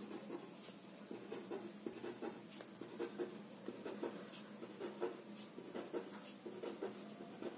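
Marker pen writing letters on paper: faint, short scratching strokes of the felt tip, coming in quick, irregular succession.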